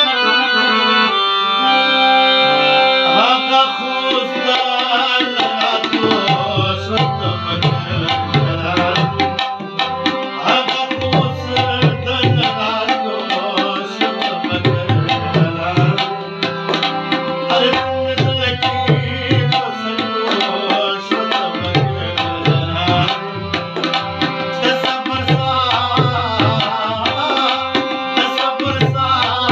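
Harmonium playing sustained chords and melody, accompanied by a tabla keeping a fast rhythm with deep bass-drum strokes coming and going in patterns.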